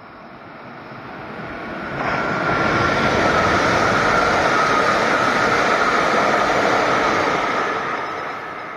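Tsubasa Shinkansen (E3 series) passing at speed on the next track: the rush of air and wheel noise swells, becomes loud and steady about two seconds in with a steady high whine on top, then fades as the train draws away near the end.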